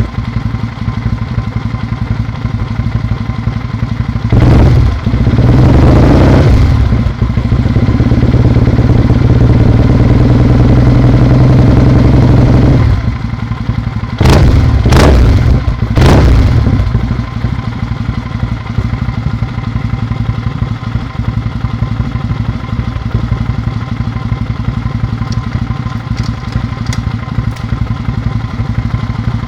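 Kawasaki W650's 676 cc air-cooled parallel-twin running through a BOATRAP cigar-type slip-on silencer, a low, punchy exhaust note. It idles, is blipped twice a few seconds in and held at higher revs for several seconds, then drops back. Three quick blips follow a little past halfway, and it settles into a steady idle.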